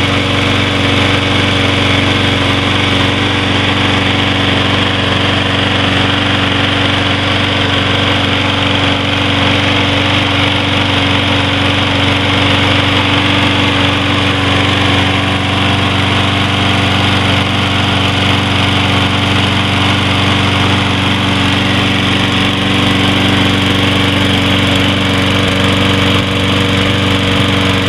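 Briggs & Stratton 675 Series single-cylinder engine on a Troy-Bilt 21-inch push mower, running steadily at speed. The note holds even with no surging, and the carburetor has just been cleaned.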